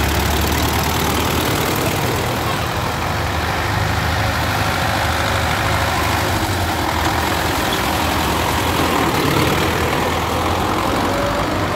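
Diesel engines of farm tractors and a combine harvester passing slowly close by at low revs, a steady low engine sound with no pauses.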